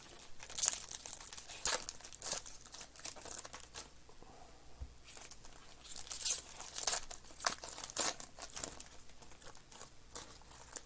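Trading-card pack wrappers crinkling and tearing as packs are ripped open and the cards are handled, in irregular crisp crackles.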